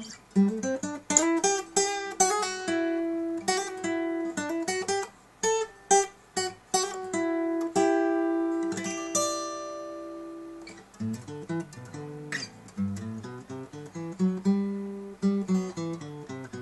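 Takamine ETN20C nylon-string acoustic-electric guitar being played: a fingerpicked line of single plucked notes, a few notes held and left to ring about halfway through, then lower bass notes moving underneath in the second half.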